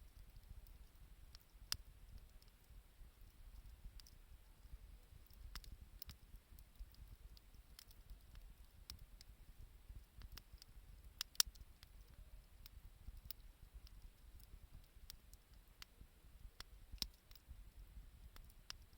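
Wood fire crackling faintly: scattered irregular pops and ticks, a few sharper ones standing out, over a faint low rumble.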